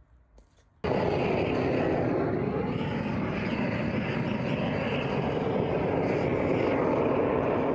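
Hand-held gas burner torch burning steadily: an even, loud rushing noise of the flame that starts suddenly about a second in, after near silence.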